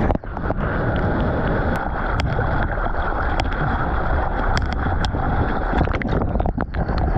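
Sea water rushing and splashing right against a GoPro camera's housing as a surfer paddles through whitewater, with sharp splash ticks scattered throughout. Near the end the camera dips under the water briefly and the sound turns uneven and muffled.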